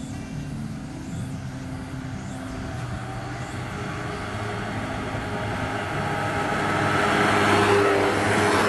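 Honda Gyro Canopy and Gyro X three-wheeled scooters running up the road toward the microphone, their small engines growing steadily louder and peaking as one passes close near the end.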